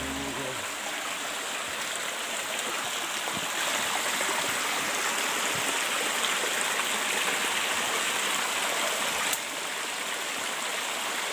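Small rocky stream running over stones: a steady rushing of water, dipping slightly about nine seconds in.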